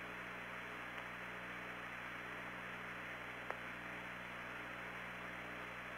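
Steady hiss and hum of the Apollo air-to-ground radio channel with no one transmitting, with a single short click about three and a half seconds in.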